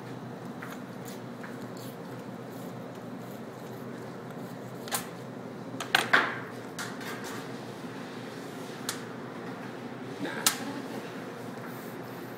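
A knife and a whole salmon being worked on a wooden cutting board: a few soft clicks and knocks, the sharpest about six seconds in and again near ten and a half seconds, over a steady room hum.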